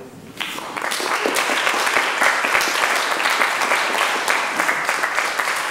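Audience applauding a song from a live musical, the clapping starting about half a second in and swelling to a steady, full round of applause.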